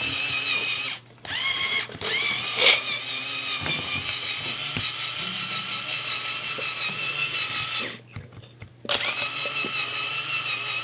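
A small electric motor whining steadily at a high pitch, stopping dead a few times and spinning back up after the first two breaks.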